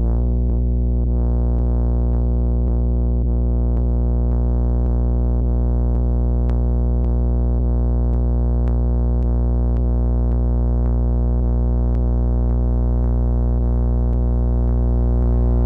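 Metasonix vacuum-tube synthesizer modules (S-1000 and D-1000 run through an R-56 reverb) holding a steady, heavy low drone rich in overtones. A faint click recurs about one and a half times a second through it.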